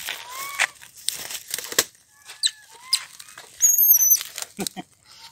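Short squeaky animal calls, several rising chirps and one loud wavering high squeal about three and a half seconds in, amid rustling and clicking.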